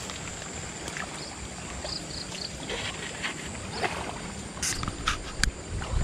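Riverbank ambience: a steady outdoor hiss with a thin high whine over it and a few short high chirps in the first half. Several sharp clicks and rustles come near the end.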